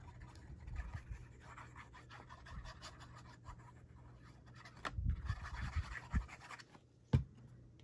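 Paper scraps and cardstock being handled and slid on a table: faint rustling and scratching, with a few light knocks about five seconds in and a sharp click near seven seconds.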